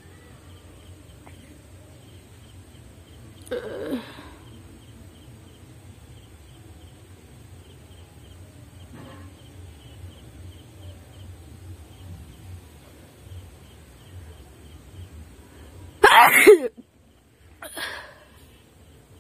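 A woman sneezing: one loud sneeze about sixteen seconds in, a softer, shorter vocal burst about four seconds in, and a brief quieter sound just after the loud sneeze. The sneezes are deliberately provoked by tickling inside the nose.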